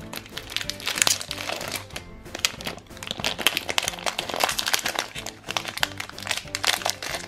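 Foil wrapper of a pack of collector cards crinkling and crackling as it is torn open by hand, over background music.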